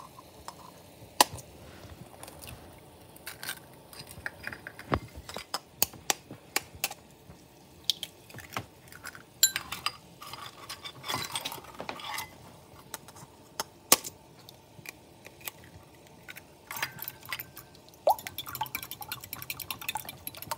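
Eggs being cracked into a bowl, with scattered sharp taps and clinks of shell and dishes. About 18 seconds in, the eggs are beaten by hand in a ceramic bowl: a fast, steady run of clicks of the utensil against the bowl.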